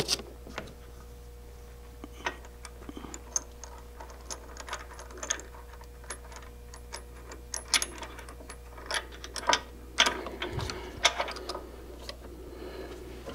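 Irregular light clicks and taps of metal parts being handled as a banjo's keeper and nut are fitted by hand under a wood lathe's bed, over a faint steady hum.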